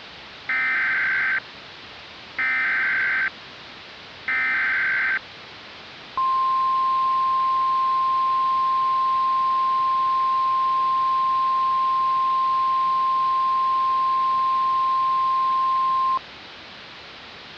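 Emergency Alert System broadcast tones over a steady hiss: three short bursts of digital SAME header data, about two seconds apart, then a single steady weather-radio attention tone held for about ten seconds.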